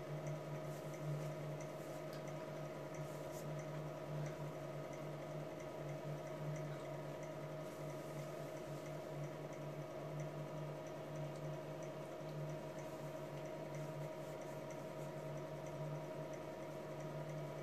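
Steady background hum with several held tones and a few faint ticks: room noise, with no programme sound.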